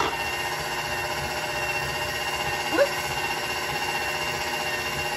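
Stand mixer's motor running steadily at speed 4, driving a pasta extruder attachment as it presses out macaroni: a loud, even motor whine. There is a brief rising sound about three seconds in.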